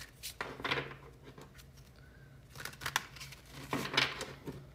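Tarot cards being handled: several short swishes and taps as cards are slid and laid down, the loudest about four seconds in.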